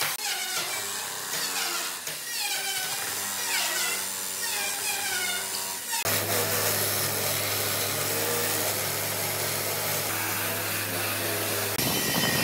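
A handheld power drill runs in short repeated bursts against a timber bench leg, its pitch sagging under load each time. About six seconds in, an angle grinder fitted with a wire wheel brush takes over, running steadily as it scours weathered timber, and stops shortly before the end.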